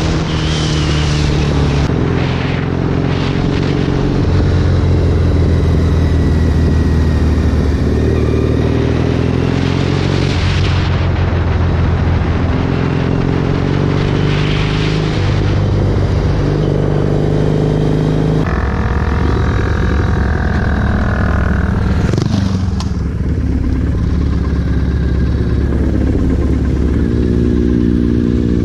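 Triumph Thruxton's parallel-twin engine running at speed, its revs rising and dropping several times with throttle and gear changes, over steady wind rush.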